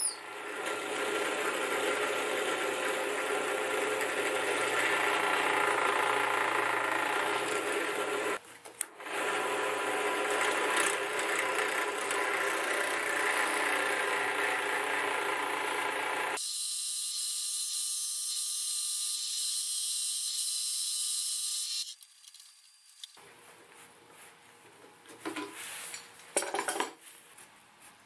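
A woodworking power tool running steadily on wood, stopping briefly about eight seconds in and then running on. Then comes a thinner, high-pitched hiss for about five seconds, and a quiet stretch with a few light knocks near the end.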